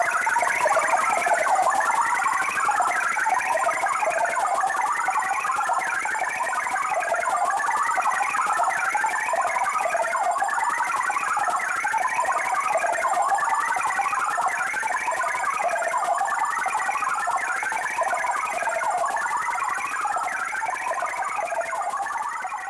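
Sci-fi computer chatter sound effect: a continuous stream of rapid electronic bleeps and chirps that rise and fall in waves about every two seconds, over a high hiss. It fades near the end.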